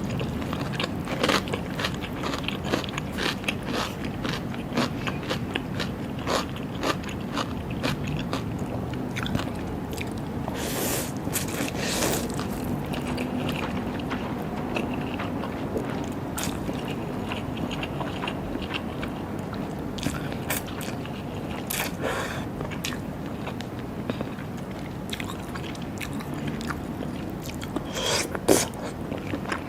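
Close-miked eating of raw seafood: biting and chewing with many sharp, wet clicks, and a few longer noisy rushes, loudest near the end.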